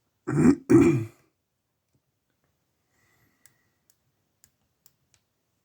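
A person clears their throat in two quick bursts. This is followed by a few faint, scattered clicks of a lock pick working the pin stack of a brass padlock.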